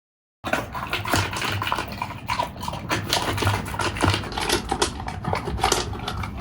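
A dog making sounds close to the microphone, over a dense run of crackling, scuffing noises that start abruptly about half a second in.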